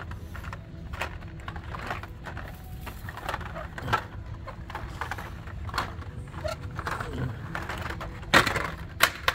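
Hot Wheels blister-card packages being flipped through and knocked on metal peg hooks: irregular crinkling plastic and cardboard clicks, with two sharper clacks near the end, over a steady low hum.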